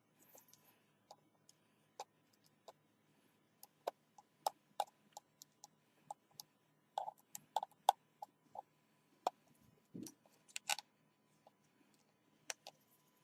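Scattered small clicks and light taps, irregular and close together in places, from handling a smartphone and small repair tools during a screen-gasket job. One soft thump comes about ten seconds in.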